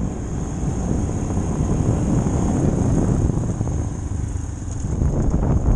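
Royal Enfield motorcycle engine running steadily while riding a rough gravel track, recorded on a helmet-mounted camera with wind rumbling on the microphone.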